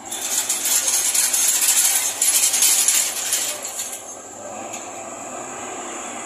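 Compressed air venting from a bus's air system: a sudden loud hiss that holds for about three and a half seconds, then fades.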